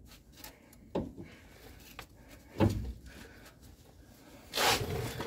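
Light metal knocks and clunks, about a second apart, as an outer tie rod end is handled and fitted up to the steering knuckle, then a short hiss near the end.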